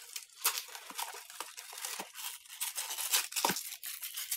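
Backpack strap and pack fabric rustling and scraping as the strap is wound through the rucksack by hand, in a run of short, irregular scrapes.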